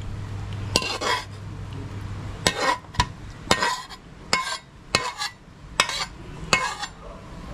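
Cutlery clinking and scraping against a plate or bowl, about a dozen light, short knocks at irregular spacing. A low hum stops about two seconds in.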